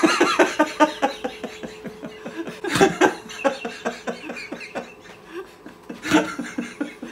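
A woman laughing hard in a long run of rapid breathy pulses through teeth clamped on a stuck dental flosser, with a louder burst about three seconds in, then tailing off.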